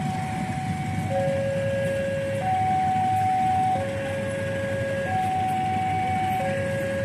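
Railway level-crossing warning alarm sounding, two steady electronic tones alternating high and low, each held for about a second and a quarter. It signals that a train is approaching the crossing. A low engine rumble runs underneath.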